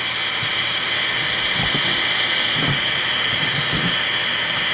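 Ghost box (spirit box) radio giving out steady hissing static through its small speaker, with a few faint, brief low-pitched fragments in the middle.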